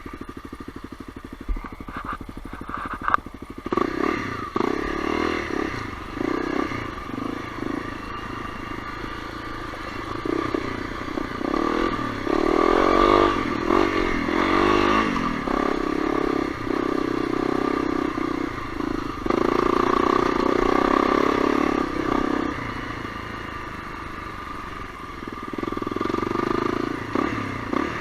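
Honda CRF250L's single-cylinder four-stroke engine running under varying throttle, swelling and easing as the bike rides along. A few sharp knocks come about two to three seconds in.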